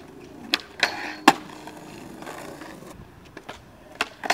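Skateboard rolling on concrete, with a few sharp clacks of the board in the first second and a half. Near the end come more clacks as the tail pops for an ollie up onto a handrail.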